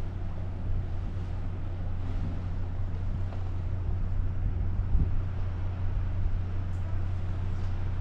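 Wind buffeting the microphone on the deck of a moving cruise ship, over the ship's steady low hum.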